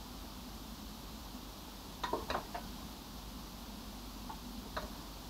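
A metal fork clicking against cookware while potatoes are lifted into a frying pan: a quick cluster of light clicks about two seconds in, then two single clicks near the end.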